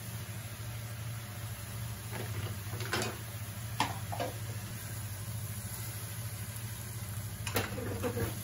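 A steady low hum, with a few short knocks and scrapes of a spatula against an aluminium cooking pot; a burst of stirring scrapes near the end as the pork, radish and chilies are turned over.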